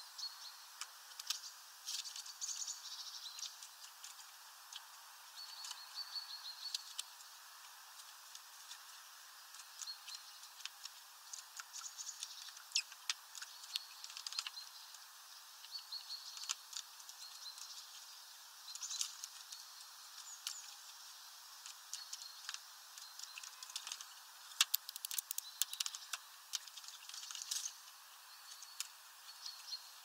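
Rain pattering on the window and feeder, with many irregular sharp ticks and taps, and short high-pitched bird calls every few seconds.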